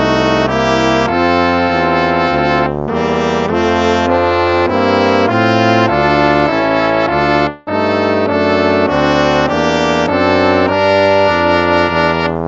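Instrumental hymn played in brass chords, moving note by note at a steady pace, with a brief break about halfway through.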